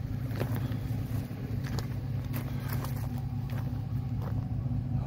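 Work truck's engine idling steadily, a low even hum.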